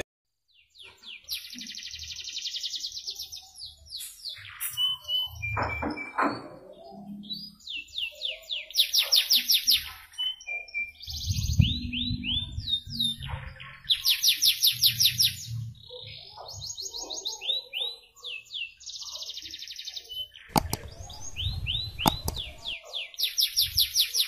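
Male domestic canary singing in breeding condition: phrase after phrase of rapid high trills and rolls, each a second or two long with short pauses between.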